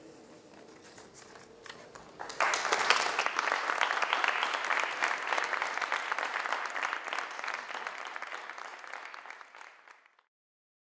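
Audience applauding at the end of a talk: a few scattered claps, then dense clapping that starts about two seconds in and slowly fades away just before the end.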